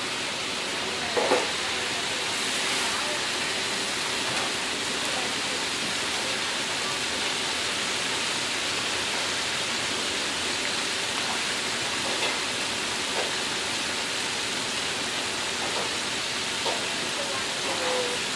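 Hot oil in a wok sizzling steadily as whole mantis shrimp deep-fry, with a few short pops, the loudest about a second in.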